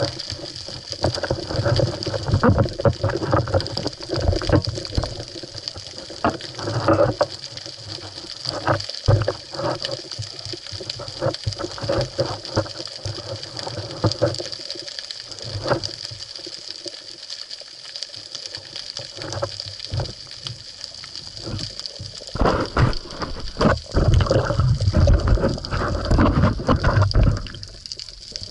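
Water sloshing and irregular muffled knocks picked up by a waterproof action camera housing mounted on a speargun, as the gun and a speared fish are handled at the surface, over a steady high hum from the housing. The knocking is thickest near the end.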